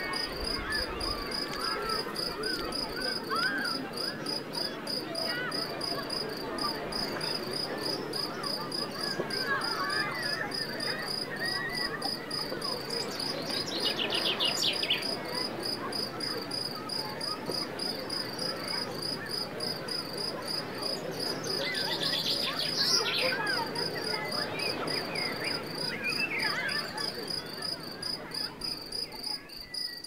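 Crickets trilling in a continuous, fast-pulsing high chirr, with many small birds chirping over it. Twice, about midway and about three-quarters through, a brief rapid rattling trill stands out.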